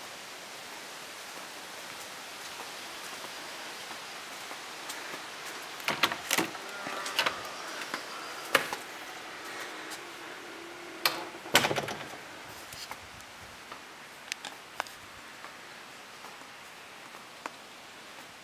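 Steady hiss with scattered clicks and knocks: a cluster about six seconds in and a louder one about eleven seconds in, as a glass-panelled door is opened and closed.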